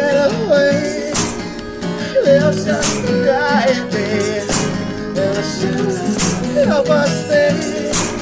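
Music: acoustic guitar playing chords under a wavering melody line, with a sharp percussive hit about every second and a half to two seconds.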